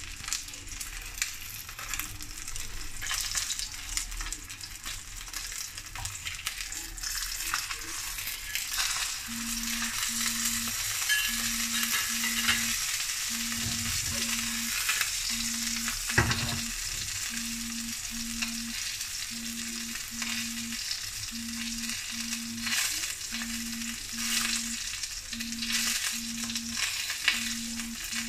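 Threadfin fish fillet pan-frying in oil, a steady sizzle and crackle. From about nine seconds in, a low double beep repeats about every two seconds, and a single knock sounds about sixteen seconds in.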